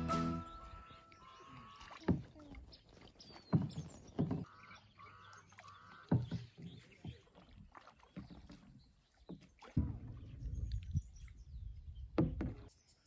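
Kayak paddling: several sudden paddle strokes and splashes in the water at irregular intervals. A bird calls a quick run of four rising notes about five seconds in.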